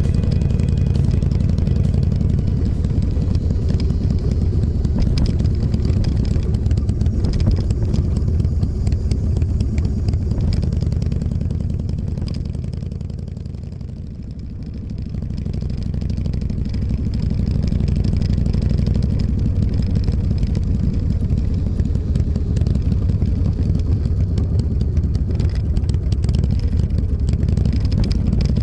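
Motorcycle being ridden, its engine running steadily under load with a strong low rumble. About halfway through the sound eases off and dips, as when rolling off the throttle, then builds back up as it pulls away again.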